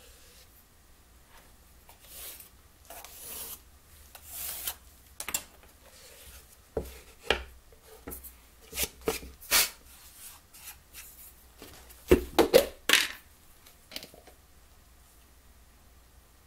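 Plywood organ-kit parts being handled on a wooden workbench: rubbing and sliding, with a string of knocks and clatters as the pieces are lifted apart and set down, the loudest knocks coming in a quick cluster late on.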